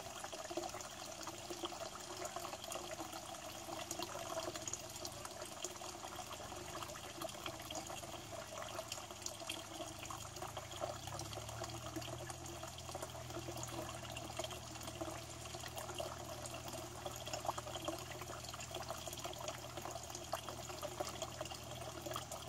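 Water running from a corrugated hose into a pond, a steady splashing trickle with many small bubbling clicks. A low steady hum joins about halfway through.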